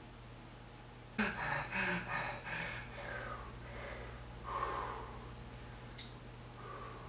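A person's voice making a quick run of short non-word sounds about a second in, then one more a few seconds later, over a faint steady low hum; a single click near the end.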